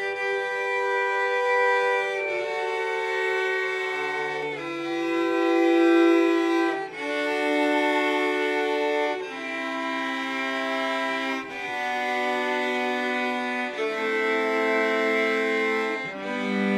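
Three cellos, two acoustic and one electric, bowing slow held chords together, the chord changing about every two seconds.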